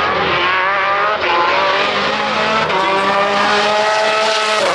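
Car engine accelerating hard at full throttle, its pitch climbing steadily. There is a short break about a second in as it shifts up, then another long climb, and the pitch drops sharply near the end at the next shift or lift.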